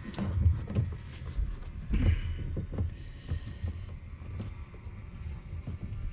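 Hand-work noises of a fuel line being pushed onto an oiled hose fitting: irregular soft knocks and small clicks, with a brief rubbing sound about two seconds in.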